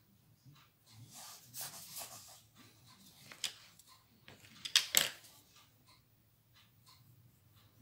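Wax-based coloured pencil scratching on colouring-book paper in short shading strokes, with a few sharp clicks; the loudest clicks come about five seconds in.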